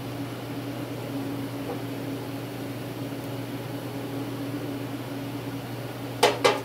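Shop heater running with a steady hum and fan noise. Near the end come three quick, sharp knocks, about a third of a second apart, as parts are handled.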